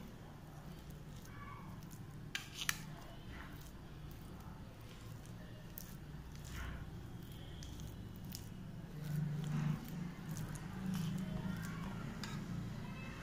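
A metal spoon stirring and pressing a sticky khoya-and-nut filling in a plate: soft squishing and scraping, with a few sharp clicks of the spoon against the plate, the loudest about two and a half seconds in. A steady low hum runs underneath.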